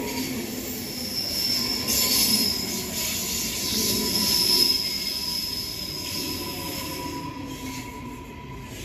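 Queensland Rail NGR electric train pulling slowly into the platform under braking, its wheels or brakes squealing high in waves over a steady electric whine. The squeal fades in the last few seconds as the train slows.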